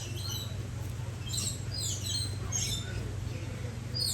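Green-naped lorikeets calling: short, high-pitched screechy chirps, each falling in pitch, about seven in quick irregular succession.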